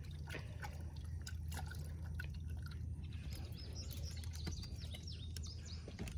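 Outdoor wildlife calls: scattered short chirps and clicks, with a quick run of falling chirps about four seconds in, over a steady low rumble.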